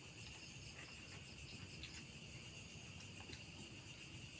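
Faint, steady chirring of night insects, with a few soft clicks.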